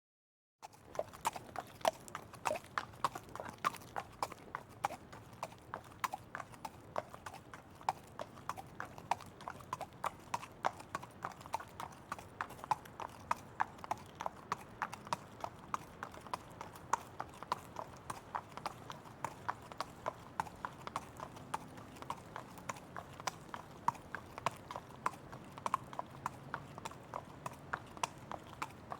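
Horse hooves clip-clopping in a steady, even rhythm of several sharp strikes a second, starting about half a second in after a brief silence.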